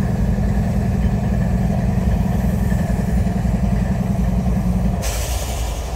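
Diesel locomotive engine running steadily with a deep, fast-pulsing rumble. About five seconds in the rumble eases and a short burst of hiss sounds.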